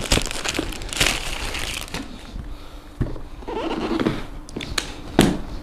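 Plastic bag wrapping crinkling and tearing as it is pulled off a plastic food container, followed by quieter handling with a few sharp knocks, the loudest about five seconds in, as the container is set down and handled on the table.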